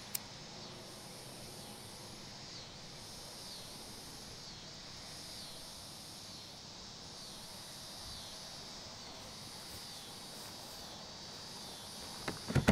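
Insects droning in waves of a second or two, with a high chirp repeating about twice a second. There is a single sharp click at the start, and near the end a burst of loud plastic clacks as the latches of a plastic storage tote are snapped open.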